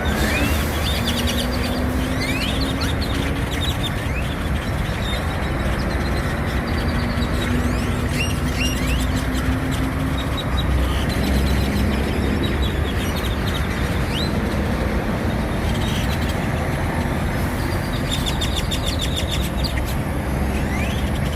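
A flock of great-tailed grackles calling loudly in trees: sharp rising whistles and bursts of rapid rattling, clicking calls. A steady low engine rumble runs underneath.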